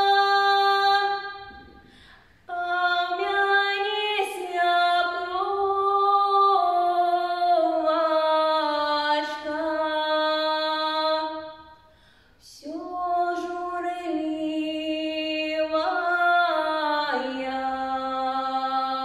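A young woman singing a Belarusian folk song a cappella, in long held notes that step slowly in pitch. She breaks off for a breath about two seconds in and again about twelve seconds in. The last phrase steps down to a low held note near the end.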